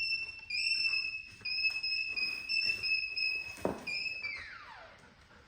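Pet parrot whistling a string of short, steady high notes, like an electronic beeping, ending near the end with one long falling whistle.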